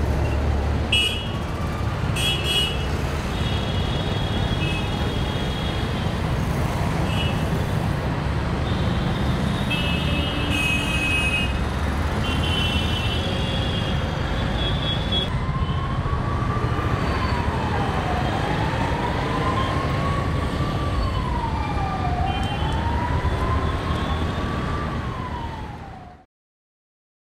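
Heavy road traffic running steadily, with several short high-pitched horn beeps through the first half. About halfway through, an emergency vehicle's siren starts a slow wail, rising and falling about every four seconds, until the sound fades out near the end.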